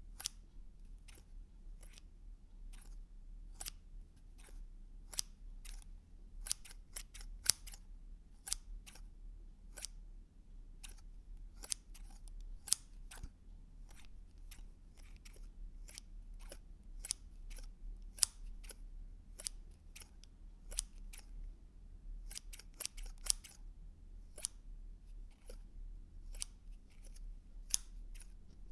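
Scissors snipping over and over, each cut a short, sharp click. The cuts come at an irregular pace, sometimes in quick runs of several snips.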